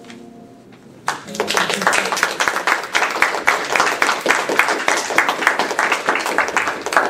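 Audience applauding, starting about a second in and lasting about six seconds.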